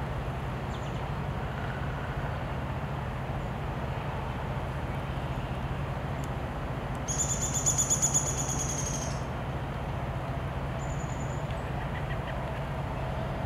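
A small bird gives a fast, high trill lasting about two seconds about halfway through, followed by a short faint high note, over a steady low rumble.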